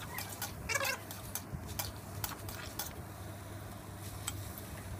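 Flat metal spatula scraping and clinking against a metal kadhai as chicken pieces are stirred and mixed with spices, in irregular short strokes.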